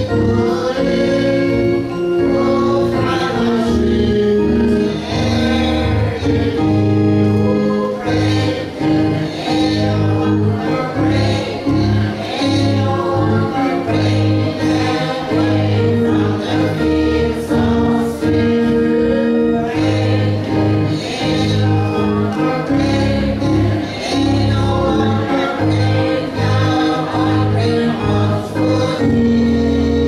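Church congregation singing a gospel hymn together over steady held organ notes.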